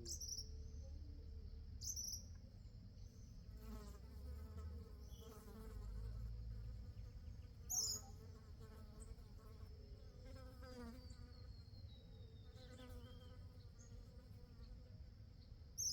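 Steady, high-pitched insect drone, with a few short, sharp bird chirps, the loudest about halfway through, and fainter repeated bird calls in between.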